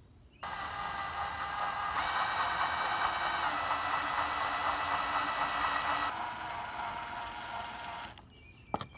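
Small electric drill running as its bit bores a hole into soft metal, a steady whine. It starts about half a second in, gets louder for a few seconds in the middle, then eases off and stops about a second before the end.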